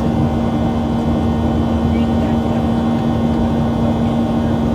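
Steady cabin drone of a Boeing 737-700 in flight: the rush of its CFM56-7B turbofans and airflow, with a constant hum running through it.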